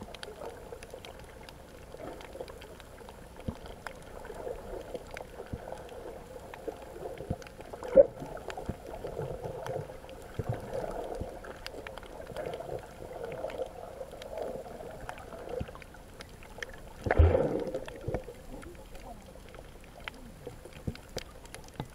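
Muffled underwater water noise picked up by a camera held below the surface, a low wash with scattered small clicks. A sharp click comes about eight seconds in, and a louder, short thump a little after seventeen seconds.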